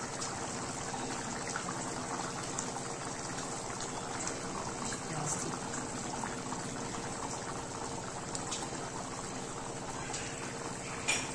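Thick fish curry simmering in an aluminium pan on a gas stove: a steady bubbling hiss with scattered faint pops.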